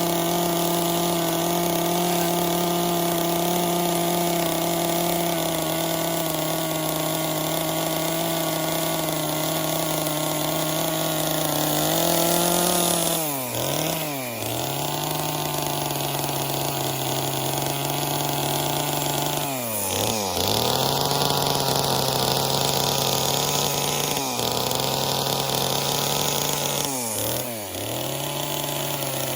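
Gas chainsaw running at high revs while carving wood. Its engine speed dips sharply and picks back up three times: about halfway through, about two-thirds through, and near the end.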